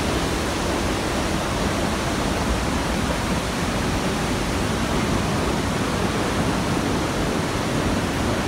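Haew Narok waterfall pouring: a steady, loud rush of falling water with no break.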